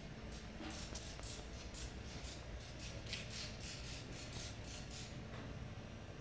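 Shoes scuffing irregularly on a gritty concrete floor, several soft scrapes a second, over a faint steady low hum.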